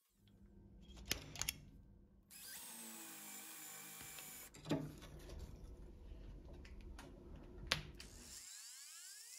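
Drill bit boring into the end of a steel threaded rod clamped in a vise, with a steady grinding noise and several sharp metal clicks and knocks. Near the end a motor's pitch rises.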